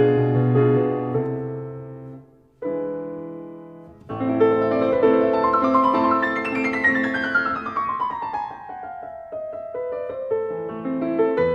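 Background piano music: a phrase that fades out, a short pause, then a new phrase with a long descending run of notes.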